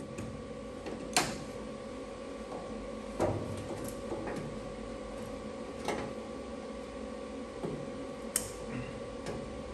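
A steady hum of shop equipment with a few sharp metallic clicks and taps, about four in all, as sheet-metal panels are handled and fitted on the car body.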